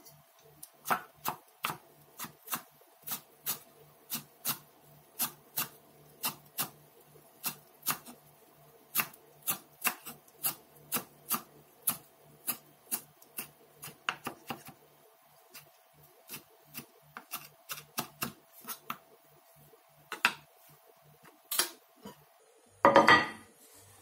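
Kitchen knife chopping a bunched handful of curly parsley on a wooden cutting board, steady sharp chops about two a second. Near the end, one louder, longer scraping sound.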